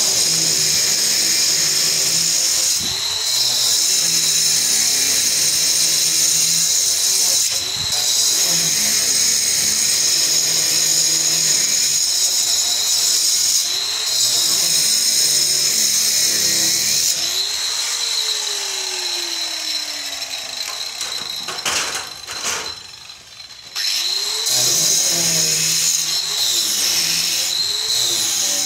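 Electric angle grinder cutting a chase into a masonry wall, a loud steady high-pitched whine with brief dips as the disc bites. About two-thirds of the way through the motor winds down with a falling pitch and stops briefly, then starts again and resumes cutting.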